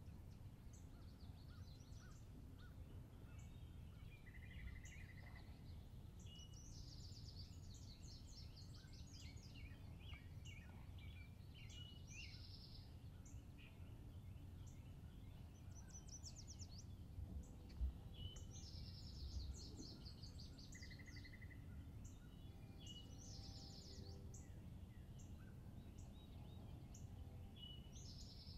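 Faint songbirds singing in the woods, phrase after phrase every few seconds, including a short buzzy trill twice, over a steady low rumble. A single brief low thump comes a little past the middle.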